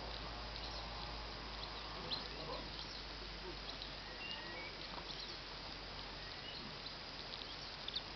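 Birds chirping: many short, scattered chirps and brief whistles.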